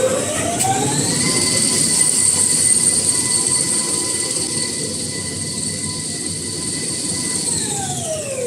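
High-speed kitchen-towel paper rewinding machine running: a motor whine climbs in pitch as it speeds up in the first second, holds steady at speed, then drops in pitch as it slows near the end, over a continuous mechanical rush.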